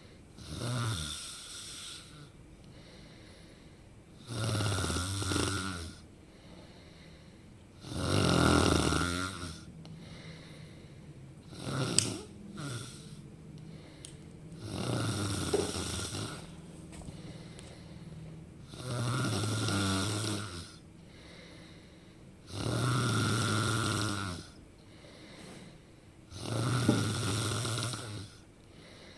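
A person snoring loudly and regularly, about eight snores each a second or two long, one every three and a half to four seconds, with quieter breathing between them.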